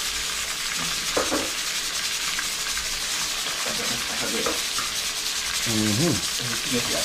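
Pieces of snook frying in hot oil in a large aluminium pot, with a steady sizzle as more fish is laid into the oil.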